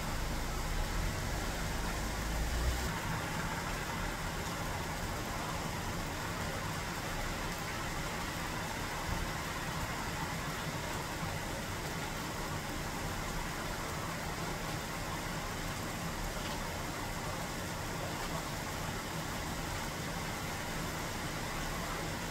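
Steady rain falling on the yellow autumn leaves of a Chinese fringe tree, an even hiss. A low rumble underneath stops about three seconds in.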